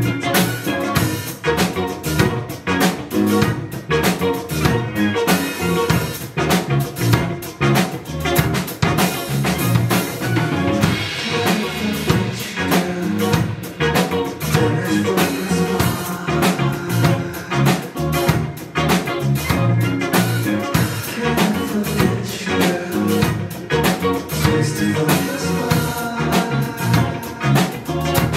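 Live band music: a drum kit keeps a steady beat over a bass line, and a male singer sings into a handheld microphone.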